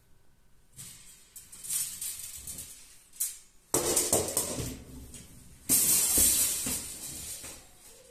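Metal clothes-drying rack being folded and turned over: its steel tube frame and wire shelf rattle and clank in several bursts. The loudest two start about four and six seconds in.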